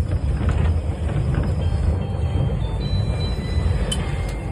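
Running noise inside a 185 series electric train: a steady, heavy low rumble. Faint thin high squeals come and go in the middle, and there is a brief click near the end.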